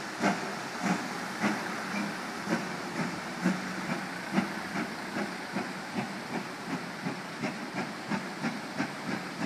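GWR Large Prairie 2-6-2 tank engine 5199 working a train under steam, its exhaust beats coming steadily and quickening from about two to three a second as it pulls away, over the steady rush of river rapids.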